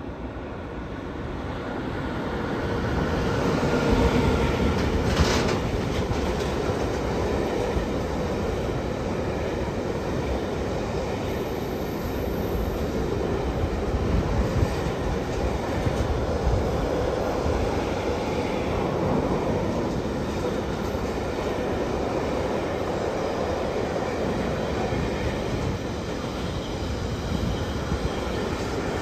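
A Siemens Vectron electric locomotive approaches and passes, its noise building over the first few seconds. It is followed by a long intermodal freight train of container and tank-container wagons rolling steadily past, wheels clattering over the rails. There is one brief sharp clatter about five seconds in.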